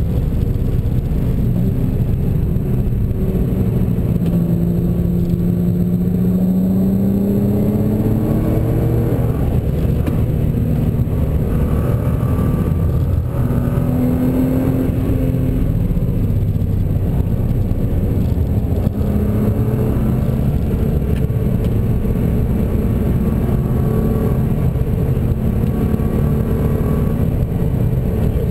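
2011 Nissan GT-R's twin-turbo V6 heard from inside the cabin at track speed, over a heavy steady road and wind rumble. The engine note climbs steadily in pitch for about five seconds early on, then settles into shorter held notes.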